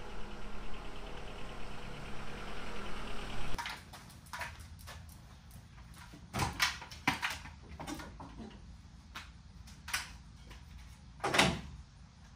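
A Honda Element driving slowly up the street, a steady vehicle noise; then, after a cut, a bicycle being lifted and hung on a wall hook in a garage, making a few sharp metal clanks and rattles, the loudest near the end.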